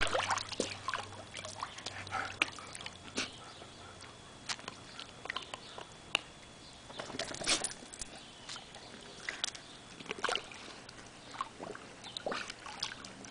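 Irregular small splashes and sloshes of shallow pool water as a husky dips its muzzle in and blows bubbles while mouthing at a floating toy.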